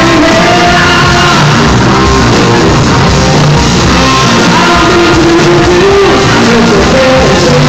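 A live funk-rock band playing loud and steady, with a singer's voice over the band.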